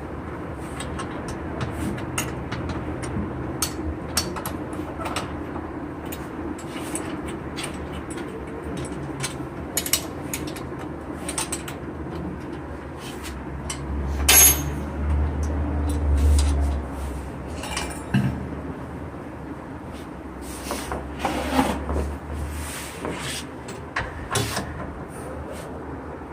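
Scattered metallic clicks and knocks of hand tools and parts as a silencer is fitted to a Honda CD 70 motorcycle, with one louder clank about halfway through and a low rumble around it and again a few seconds later.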